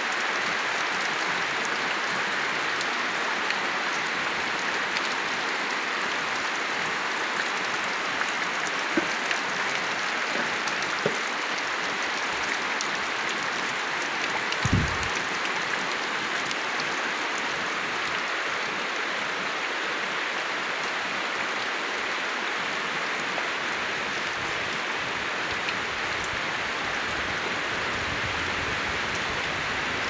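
Steady rain falling on leaves and trees: an even hiss with scattered ticks of single drops. A single dull thump about halfway through.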